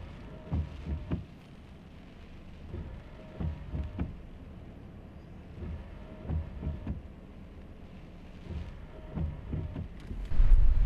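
Car windshield wipers sweeping a rain-wet windshield: a pair of soft thumps with a faint motor whine about every three seconds. Near the end, loud wind rumble on the microphone cuts in.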